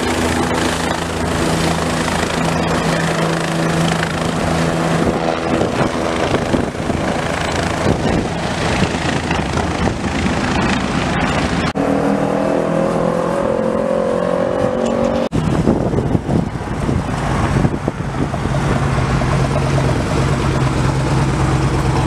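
Engines of passing street vehicles, in several cut-together takes. In the middle, a sport motorcycle accelerates past for about three seconds, its engine note rising, before the take cuts off suddenly. Other motorcycles and cars run by in the later part.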